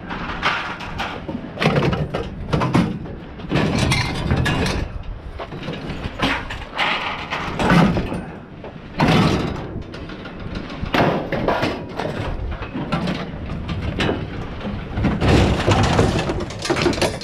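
Scrap metal being shifted and dropped: irregular clanks, scrapes and thuds, about one every second.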